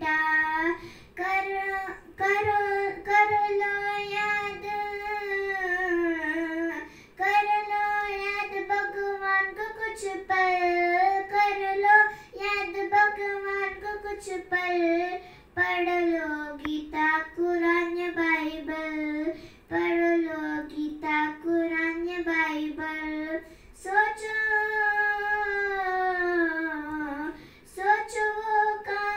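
A young girl singing solo without accompaniment, holding long notes with a slight waver, in phrases broken by short pauses for breath.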